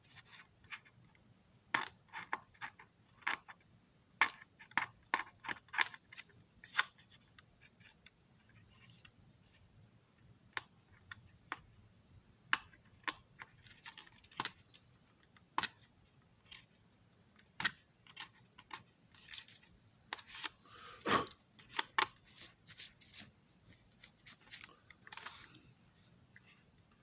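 Small hand tools and plastic model parts being handled and worked at a bench: irregular light clicks and short scrapes, with a longer, louder scrape about two-thirds of the way through.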